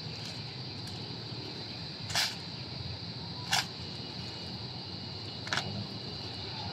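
Three sharp slaps from a Marine silent drill platoon's rifle drill, hands striking and catching the rifles in unison, spaced about one and a half to two seconds apart over a steady high-pitched outdoor background.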